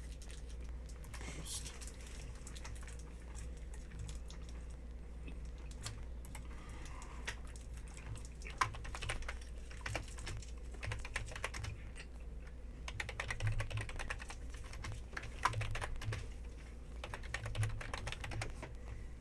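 Typing on a computer keyboard: irregular key clicks that grow busier in the second half, over a low steady hum.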